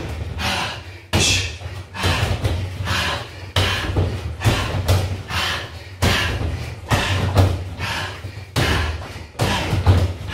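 Repeated thuds of bare feet stamping and landing on a foam mat during side kicks and spinning back kicks, about one a second.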